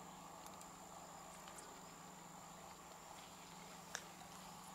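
Near silence: a faint, steady high insect drone over a low steady hum, with a few faint ticks and one small click about four seconds in.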